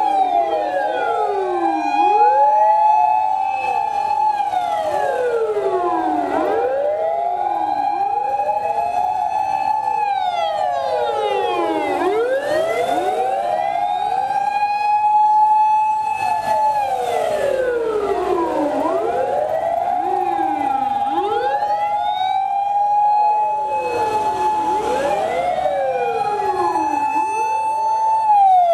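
Many fire engine sirens wailing at once and out of step with each other. Each rises to a high steady pitch, holds it for a few seconds, then slides down, so the rises and falls keep overlapping and crossing.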